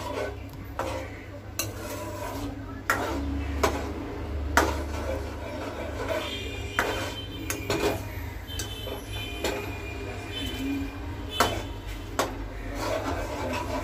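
A metal spoon stirring milk and vermicelli in a steel pan, scraping the pan and knocking against its sides and bottom in irregular clinks, several of them sharp and loud.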